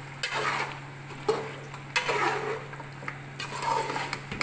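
Metal spoon stirring and scraping through a wet mixture of lamb, tomato and yogurt in a stainless steel cooking pot, in irregular swishes with a few sharp clinks against the pot. A steady low hum runs underneath.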